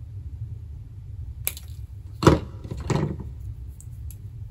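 Wire cutters snipping a stiff silver-plated wire, a sharp click about one and a half seconds in, followed by a louder thump and handling noise from the tool and board. A steady low hum runs underneath.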